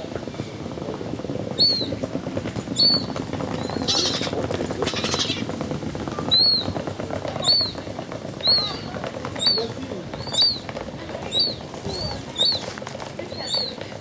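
Gull chick peeping again and again, a thin high call that rises and falls, about once a second, over a steady low background noise. A brief rustle about four seconds in.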